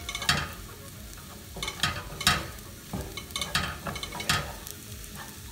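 Wooden spatula scraping and pushing diced potatoes around a hot non-stick frying pan in oil, in repeated uneven strokes, over a steady sizzle of frying.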